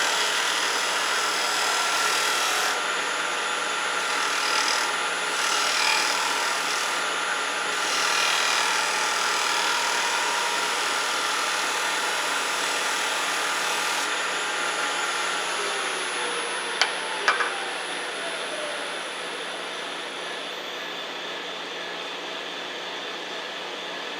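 Wood lathe running with a round cutter shear-cutting the spinning sweet gum, a steady motor whine under the scraping of the tool. About fifteen seconds in the whine falls in pitch as the lathe spins down, two sharp clicks follow about half a second apart, and a quieter steady hum is left.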